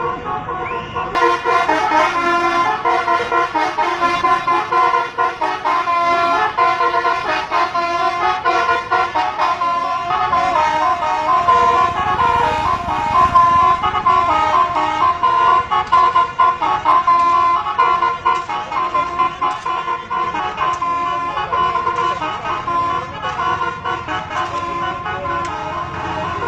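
Bus telolet horn: a set of tuned air horns played as a melody of quickly changing notes, loud and continuous throughout.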